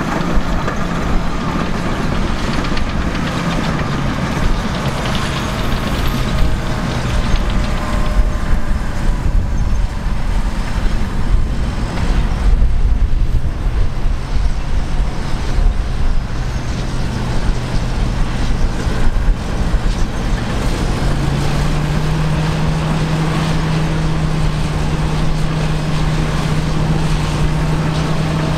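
Caterpillar D8K crawler dozers' big diesel engines working under load with a heavy, continuous rumble. The engine note wavers early on and rises to a higher, steady pitch a little past two-thirds of the way through.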